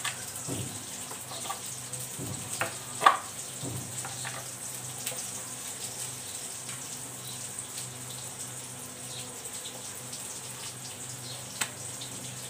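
A few light knocks and handling sounds of a knife and pastry sheets on a tabletop, the sharpest about three seconds in and another near the end, over a steady background hiss and low hum.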